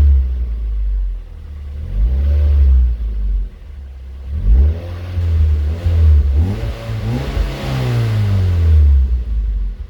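Mazda Miata NC engine breathing through a Yonaka aftermarket exhaust, revved about four times soon after a cold start. Each rev rises and falls in pitch and settles back to a low idle between blips.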